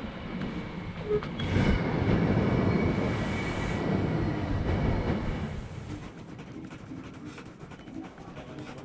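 Steady loud rush of blown air with a faint high whine at a shopping-centre entrance door, typical of the air curtain over the doorway; it fades after about five seconds into quieter indoor hall ambience.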